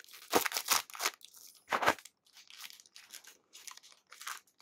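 Plastic toy packaging crinkling as it is handled and opened by hand. A few sharp crackles come in the first two seconds, followed by fainter rustles.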